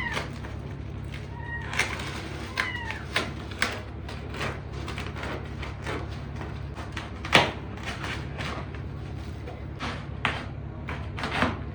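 A cat meows two or three times in the first few seconds. Throughout, cardboard packaging gives short clicks, rustles and snaps as it is torn open, with one sharp snap about halfway through, over a steady low hum.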